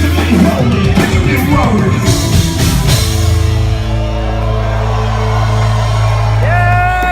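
Loud live rock band music: drums and full band for the first few seconds, then the band holds a sustained chord over a steady bass note, and a long held high note comes in near the end as the song closes.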